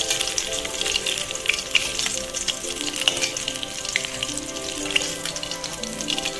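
Fish steaks sizzling and crackling in hot oil in an aluminium kadai, with sharp little spits and the clink of a metal spatula against the pan as the fried pieces are lifted out.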